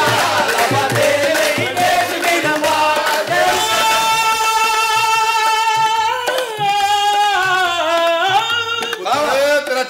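Qawwali-style singing: a man's voice holds one long note that wavers and slides down in pitch, over a dholak drum playing a steady beat. Near the end a new rising phrase begins.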